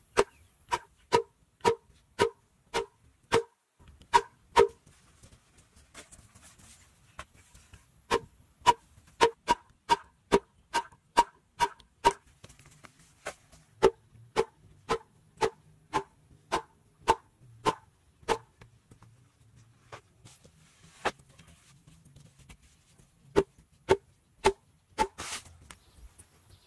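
A thick bamboo tube used as a mallet, knocking a wooden stake into the ground. The knocks come in runs of steady blows, about two a second, with short pauses between runs, and each knock has a short hollow ring.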